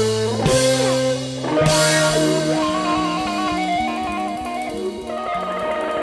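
Live band playing an instrumental passage on guitar and drums: struck chords with cymbal crashes over the first two seconds, then a repeating guitar figure over a stepping low line.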